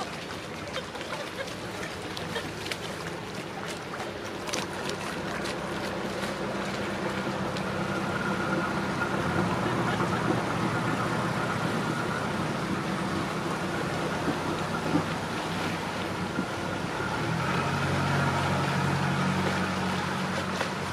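Diesel engine of a river motor cruiser running at low speed as the boat passes close by, a steady low hum. A second cruiser's engine grows louder near the end.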